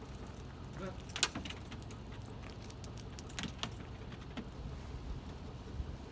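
Light metallic jingling and clinking of dog collar tags and leash clips while leashed dogs are handled, a few separate clinks with the sharpest about a second in.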